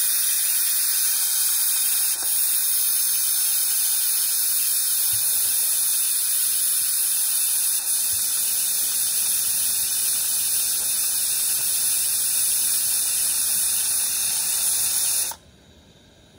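Pressure cooker venting steam: a loud, steady high-pitched hiss that cuts off suddenly near the end.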